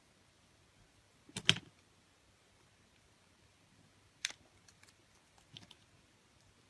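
A few sharp clicks and taps: a loud cluster of two or three about one and a half seconds in, a single click near four seconds, then a few fainter taps.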